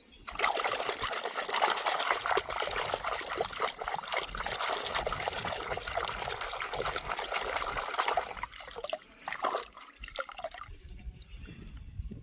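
Water pouring and trickling, with fine splashing and bubbling, for about eight seconds. It then stops, with a couple of brief splashes and a faint trickle near the end.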